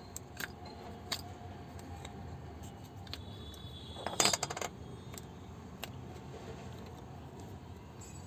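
Light clicks and knocks of an opened LED bulb's plastic housing and parts being handled, with a short clatter of clicks about four seconds in.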